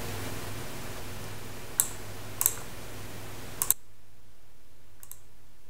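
Steady hiss with a low hum: the background noise of a cheap unbranded USB sound card recording a lavalier mic, with the gain boosted by its AGC setting. Sharp mouse clicks come about two, two and a half and three and a half seconds in. With the last pair the hiss drops suddenly as the AGC is switched off, leaving only faint clicks.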